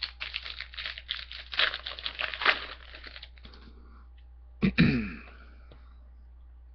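A trading-card pack's wrapper being torn open and crinkled for about three seconds, with dense crackling and small clicks. A short burst of voice follows about four and a half seconds in.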